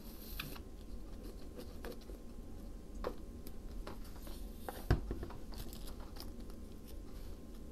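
Paper crafting handling sounds: soft rustling and small scattered taps as paper pieces are pressed and glued down, with one sharper tap about five seconds in.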